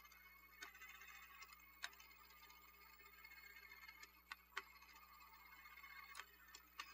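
Faint, irregular clicking from the gear train of a Radio Shack Armatron toy robot arm as it is worked through its controls, over a faint steady whir.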